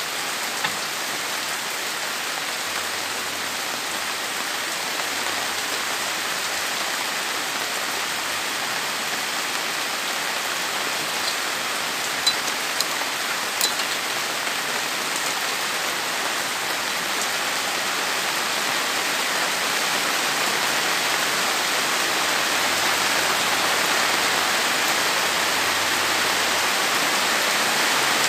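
Heavy rain falling steadily, growing a little louder in the second half.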